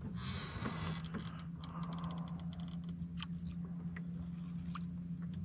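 Electric trolling motor running with a steady low hum that starts at the beginning, with a burst of hiss in the first second and scattered light clicks over it.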